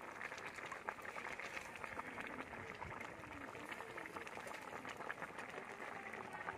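Ginataang papaya, green papaya and tambakol tuna in coconut milk, boiling in a wide steel pan: a steady, dense bubbling and popping.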